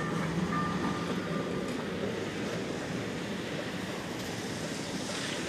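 Steady rumble and hiss of passing street traffic, with the low rumble strongest in the first two seconds.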